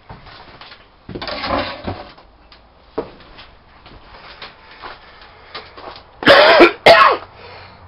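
A man coughing twice in quick succession near the end, the loudest sound here, with a softer rasping breath about a second in.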